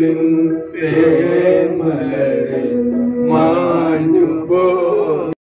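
Men singing a slow song together into a handheld microphone, with long held notes that glide up and down. The singing cuts off suddenly near the end.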